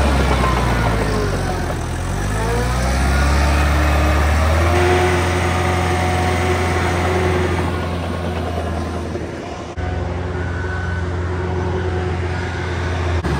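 Diesel engine of a Caterpillar 943 crawler loader running; its speed dips and picks back up in the first few seconds, then holds steady. After a sudden break about ten seconds in, a similar steady heavy diesel engine carries on.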